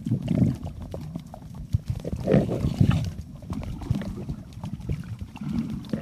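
Muffled underwater noise from a camera moving through seawater: a low rumble with irregular knocks and clicks, and a louder rush of noise about two to three seconds in.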